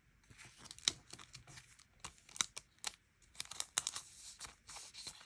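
Paper and sticker sheets being handled close up: irregular crinkling and rustling with small peeling or tearing sounds and sharp little clicks, the loudest about a second in and again around two and a half, three and four seconds in.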